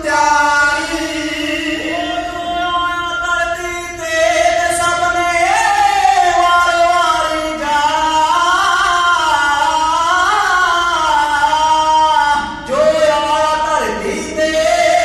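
Kavishri singing: male voices in unison holding long notes that waver and glide up and down, with a short break for breath near the end.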